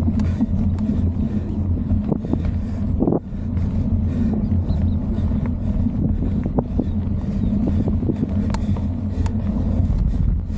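Wind buffeting the microphone while a mountain bike rolls along a dirt trail: a steady low rumble of wind and tyre noise, with scattered clicks and rattles from the bike over bumps.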